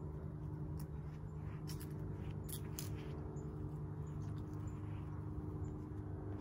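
Engine of a 1956 Chevy 3100 pickup idling steadily, with a few light clicks scattered over it.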